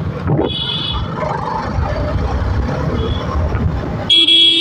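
A TVS Apache RR310's single-cylinder engine running, with riding noise, in slow traffic. A short, faint horn beep about half a second in, then a loud horn blast near the end.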